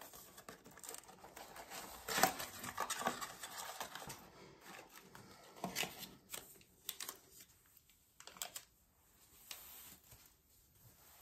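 Cardboard box of alcohol swabs being opened and handled: rustling, crinkling and tearing of paper and cardboard, loudest about two seconds in, followed by scattered light clicks and knocks as the box is set down.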